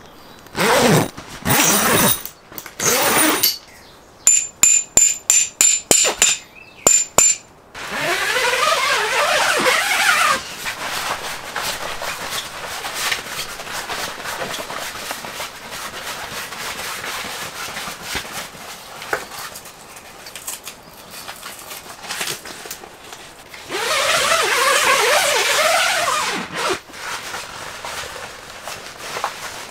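Zippers on the canvas side walls of a James Baroud Falcon 270-degree awning being worked: a run of quick short zip strokes in the first few seconds, then two long rasping unzips, about eight seconds in and again near the end, as the curved window panels are opened. Between them the canvas rustles as it is handled.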